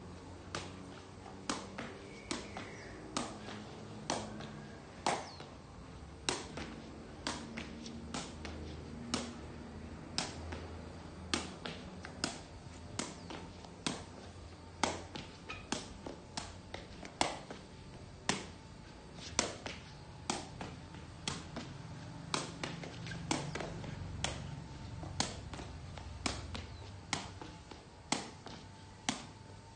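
A sepak takraw ball kicked up again and again in foot juggling, each touch a sharp tap, about one to two a second.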